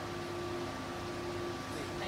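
Stepper motor of a 9060 CO2 laser cutter's Z-axis lifting table running, turning the drive belt and lead screws that raise and lower the bed. It makes a steady mechanical hum with a few steady tones over a hiss.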